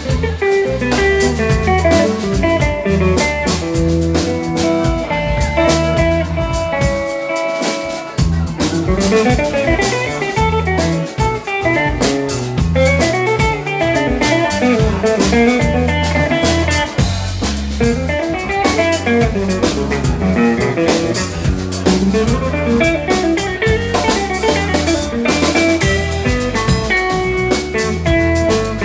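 Live instrumental trio: an electric guitar playing fast lead lines over electric bass and a drum kit, with steady drum hits throughout.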